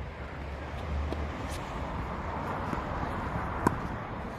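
A single sharp knock of a ball striking a hard surface about three and a half seconds in, with a few fainter clicks, over a steady background of outdoor noise and low hum.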